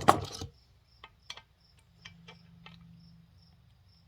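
A loud clatter of hard knocks at the start, then a few light clicks and taps of work on the parts, while a cricket chirps steadily in the background, about three chirps a second.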